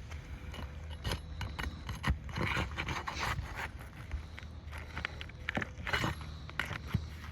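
Irregular scrapes, clicks and taps of hands-on repair work, busiest a couple of seconds in and again near the end, over a steady low hum.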